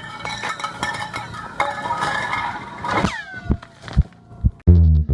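Ice chunks falling down a deep borehole in Antarctic ice, a rapid run of clinks and ringing tones with several quickly falling, whistle-like pitch glides about three seconds in, and a few low thuds after. Music with a bass line starts near the end.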